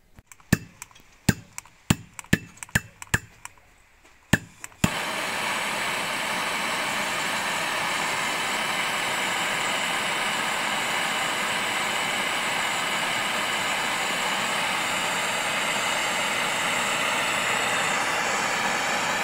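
About ten sharp separate clicks, then, about five seconds in, a Rothenberger MAPP gas hand torch starts an even, steady hiss that holds unchanged. The torch is heating copper washers red hot to anneal (soften) them.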